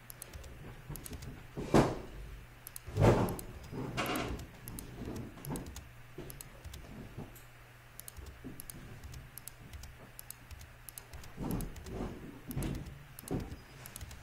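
Computer keyboard typing: a steady run of light key clicks as the space bar is pressed over and over, with two louder knocks about two and three seconds in.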